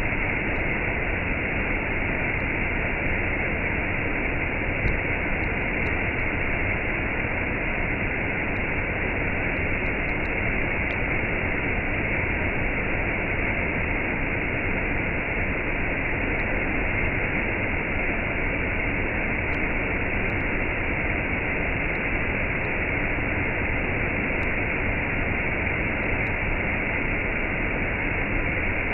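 Waterfall with a cascade: water falling and rushing in a steady, unbroken roar.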